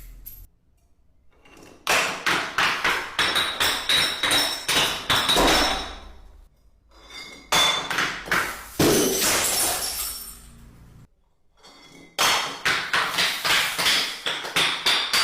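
Glass shattering and shards clattering down, in three bursts of many sharp crashes with high ringing tinkles, each lasting a few seconds.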